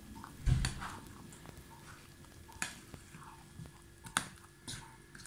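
Spoon stirring pear chunks into cake batter in a glass bowl: soft wet stirring with a few sharp clicks of the spoon against the glass. The loudest click comes with a dull knock about half a second in.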